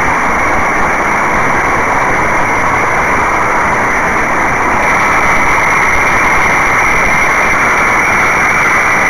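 Spitfire Mk.IX's Rolls-Royce Merlin V12 engine running steadily in flight, mixed with the rush of airflow, loud and unbroken.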